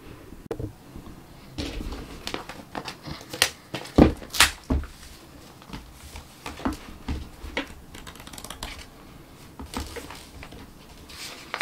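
A hardback sketchbook being handled and opened on a table: a scatter of taps, knocks and paper rustles as the cover and pages are turned, loudest about four seconds in.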